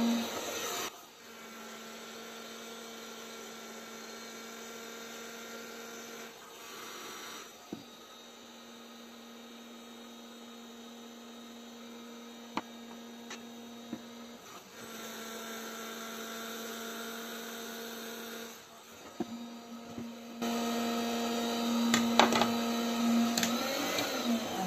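Electric hot-air tool's blower motor running with a steady, pitched hum. The hum breaks off and starts again several times, with a few light clicks of the plastic part being handled.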